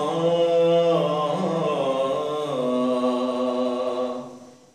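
A man's voice chanting an unaccompanied melodic line in long held notes with slow glides in pitch. It fades out about four seconds in, a pause between phrases.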